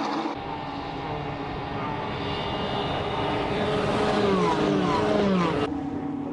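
Racing car engines running at high revs on track, with several engine notes falling in pitch as cars pass or lift off between about four and five and a half seconds in. The sound changes abruptly twice where the footage is cut.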